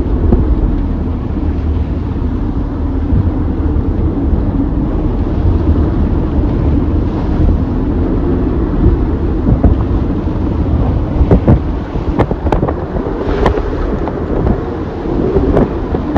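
Strong wind buffeting the microphone over the rush of rough seas against a sailboat's hull, with a few sharp hits about two-thirds of the way through.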